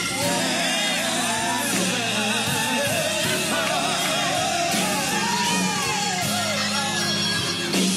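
Gospel song: a lead voice sings with a wide, wavering vibrato over steady instrumental backing chords.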